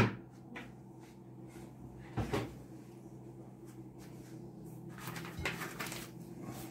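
Quiet kitchen handling sounds: a double knock about two seconds in, a few small clicks and a soft rustle near the end, over a low steady hum.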